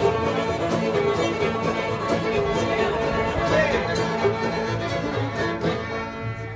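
Acoustic string band jam: two fiddles, a five-string banjo, guitars and an upright bass playing a fiddle tune together. It ends about six seconds in on a held final chord that rings out and fades.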